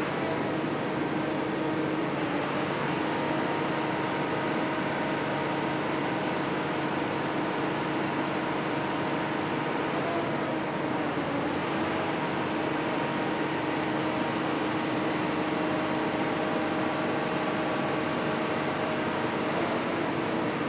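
Fletcher 3100 Series roof bolter running steadily, its machinery giving a constant noise with a few held hum tones. A faint high whine joins about twelve seconds in and stops near the end.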